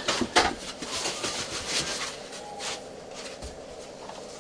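Packing material and parts being handled as a boxed 3D printer is unpacked: a quick run of rustles, scrapes and light knocks over the first few seconds, quieter near the end.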